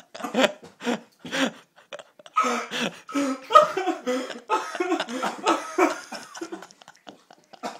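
A man coughing harshly on a mouthful of dry cinnamon powder, about four short coughs in the first two seconds, then breaking into a long stretch of laughter.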